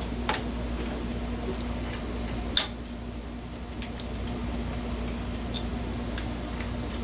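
Scattered light clicks and taps, the sharpest about two and a half seconds in, over a steady low hum.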